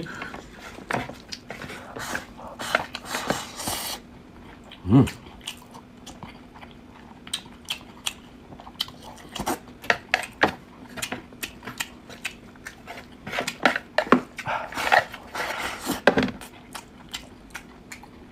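A person eating with their mouth close to the microphone: irregular chewing and lip smacking, with light clicks of utensils against a bowl. A faint steady hum runs underneath.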